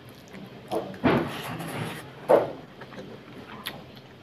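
Close-miked eating sounds: wet chewing and the squish of fingers working rice and mutton fat curry, with three louder wet smacks in the first two and a half seconds.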